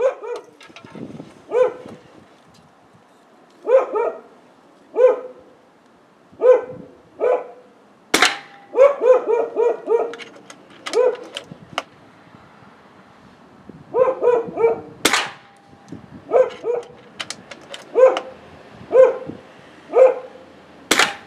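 A dog barking over and over in short bunches, and three sharp cracks from a .25-calibre Air Venturi Avenger PCP air rifle fired through a DonnyFL Fat Boy 2.0 suppressor, spread several seconds apart.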